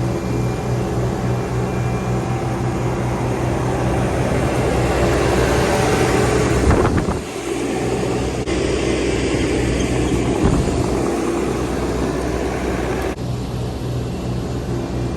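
Vehicle engine running steadily under road noise, with a rushing haze that swells in the middle and a brief drop in sound about seven seconds in.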